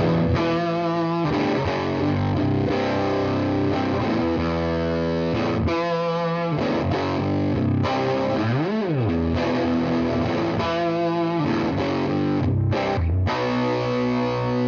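Electric guitar played through an EarthQuaker Devices Monarch FET overdrive pedal with its gain and level cranked up, giving heavily distorted metal-style chords and riffs through a guitar amp. One quick pitch swoop up and back down comes near the middle.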